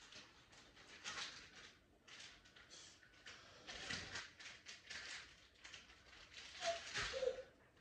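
Soft, irregular rustling and scuffing from hands working in hair and clothing, with a dull thump about four seconds in and another about seven seconds in, and a short squeak near the end.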